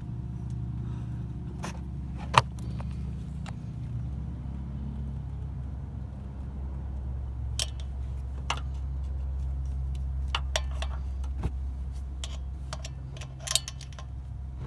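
Scattered sharp metal clicks and clinks of a wrench working on a fitting while it is snugged up, the loudest about two seconds in, over a steady low mechanical hum.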